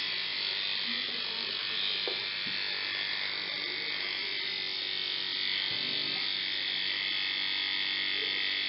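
Federal Model 17 brushed electric motor from a 1950s Federal Beacon Ray, freshly rebuilt and running steadily, with a steady high-pitched hiss over a low hum. The hiss is the noise of reseated brushes that are not yet smooth and do not yet fit snug against the commutator.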